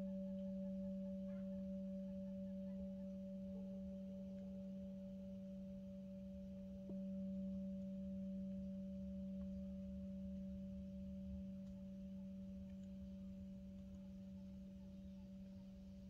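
Metal singing bowl ringing with a steady low hum and a fainter higher overtone; it is struck again with its mallet about seven seconds in, then slowly fades.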